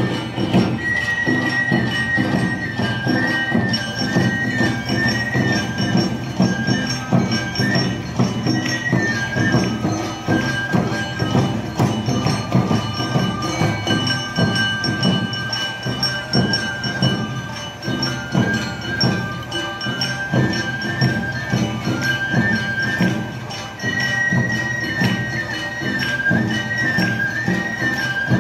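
Awa Odori dance music played by a live group: a high bamboo flute melody over steady fast drumming, with the clang of a small hand gong.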